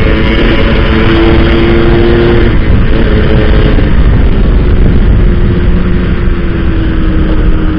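Yamaha RXZ's 135 cc two-stroke single-cylinder engine running at a steady cruise under heavy wind rush. The engine note holds steady, then slowly drops in pitch over the second half as the revs ease off.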